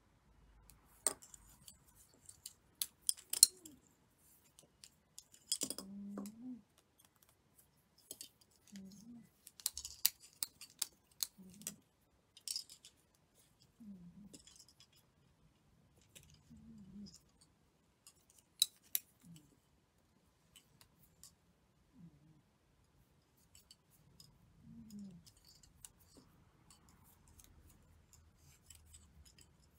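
Handling sounds of tatting: scattered sharp clicks and taps of a plastic tatting shuttle and a metal hook, with short low rubbing sounds of thread drawn through the lace.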